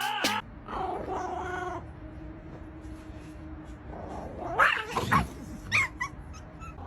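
Cat yowling: a drawn-out call about a second in, then several sharp cries that rise and fall in pitch around five seconds in.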